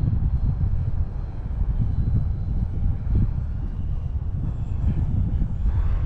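Wind buffeting the microphone as a low, rough rumble, with the faint, steady high whine of an E-flite Turbo Timber's electric motor and propeller as the plane comes in on its landing approach.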